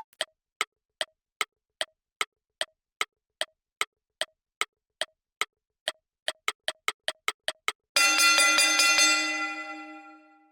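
Cartoon game-timer sound effect: wood-block-like ticks about two and a half a second, speeding up to about five a second, then a bright synthesizer chord struck near the end that rings and fades away.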